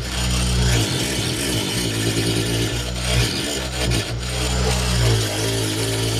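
Angle grinder running steadily with a reciprocating chisel attachment, the chisel shaving curls of wood from a wooden block.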